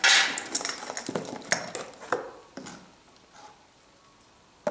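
Old metal lamp parts and wiring being rummaged and handled in a cardboard box: a loud rustle and clatter at the start, then a run of clinks and rattles over about two seconds, going quiet afterwards, with one sharp click at the end.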